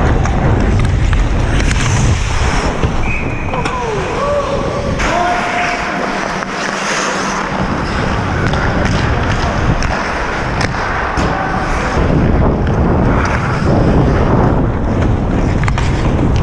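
Ice hockey skating heard from a helmet-mounted camera: skate blades scraping the ice and wind buffeting the microphone, the wind rumble easing briefly about six seconds in. Scattered sharp clacks of sticks and puck and a few distant voices.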